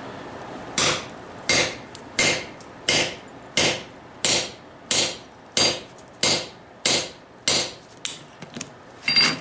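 Hand hammer striking a 1-inch chisel held on a red-hot steel plate on the anvil, cutting a slit. About a dozen evenly spaced blows, roughly one every two-thirds of a second, each with a short metallic ring.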